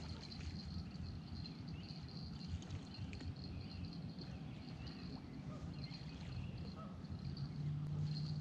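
Riverbank ambience: faint, scattered bird chirps over a low, steady rumble, with a steady low hum that starts near the end.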